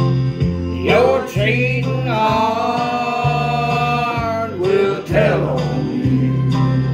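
Country song with singing, played through a karaoke machine, over a steady bass line; a long held sung note comes in the middle.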